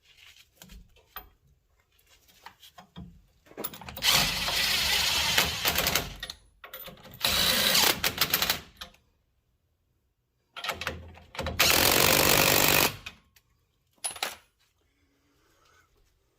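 Impact wrench running nuts down on the truck's rear suspension hardware in three bursts of about two seconds each, with lighter clinks of tools and hardware between.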